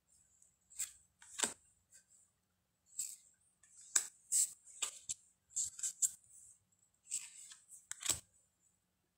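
Glossy tarot cards being handled during a flip-through: a string of short papery swishes and snaps as cards slide off one another, with a few light taps as they are set down, the firmest near the end.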